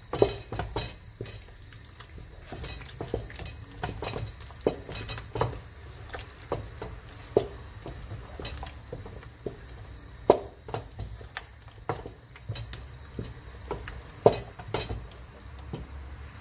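Wooden spoon stirring thick ogbono soup in a stone-coated pot, knocking irregularly against the pot's sides and bottom, about once or twice a second, over a low steady hum.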